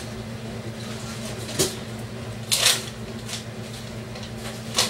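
Rummaging and handling sounds: a few short rustles and knocks, the loudest about two and a half seconds in, over a steady low electrical hum.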